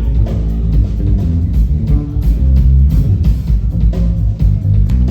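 Live rock band playing an instrumental stretch without vocals: guitar and bass guitar over drums, loud.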